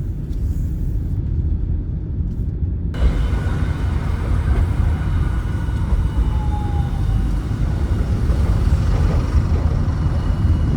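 Steady low rumble of a car driving, with a higher hiss joining in about three seconds in.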